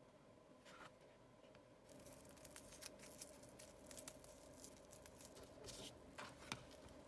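Faint crinkling and small clicks of plastic cling film wrapped around an iPod mini as it is handled, starting about two seconds in.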